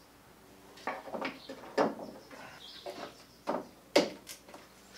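Several irregular wooden knocks and scrapes as pivot pins are pressed by hand into the cutouts of a wooden shelf frame.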